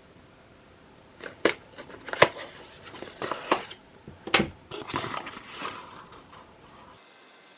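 Handling noises: a string of sharp clicks and knocks with crinkly rustling, starting about a second in and dying away before the end, the loudest clicks about two and four seconds in.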